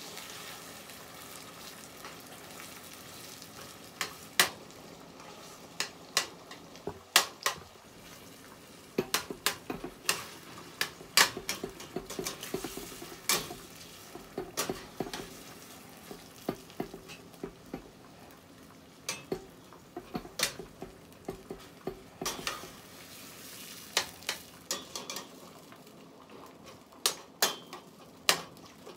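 Tinned mackerel frying with onion and seasoning in hot oil: a steady soft sizzle, with a metal spoon clinking and knocking against the pot in irregular bursts as it is stirred.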